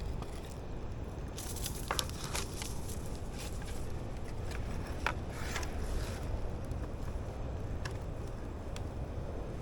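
Campfire crackling: irregular sharp snaps scattered over a steady low rumble.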